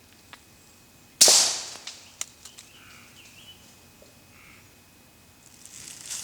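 A single 9mm shot through a SilencerCo Octane 9 suppressor about a second in, firing a Winchester 147-grain round: a sharp crack with a short fading tail. A faint click follows about a second later.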